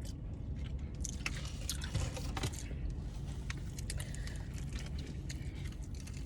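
Quiet chewing and small scraping and clicking noises of food being handled, over a steady low hum.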